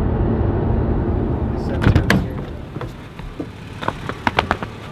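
Steady road and engine rumble inside a moving car for about two seconds, then a sharp knock, followed by quieter footsteps in sandals on a dirt path, a run of light clicks near the end.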